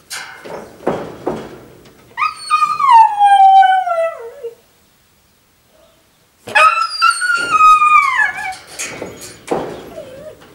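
Siberian husky howling: two long howls that each start high and slide down in pitch, the first about two seconds in and the second about four seconds later. Shorter, rough noises come before and after them.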